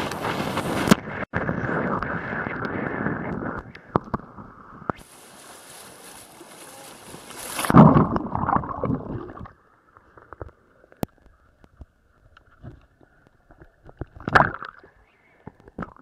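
Inner tube riding down a waterslide flume with water rushing loudly for the first few seconds and more quietly after, then a loud splash about eight seconds in as it hits the pool. Faint sloshing and gurgling water follow, with a brief splash near the end.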